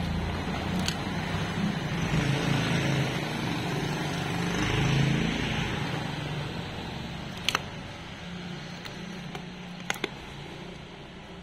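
A motor vehicle engine running close by, swelling to its loudest about five seconds in and then fading away, with a few sharp clicks later on, two of them close together near the end.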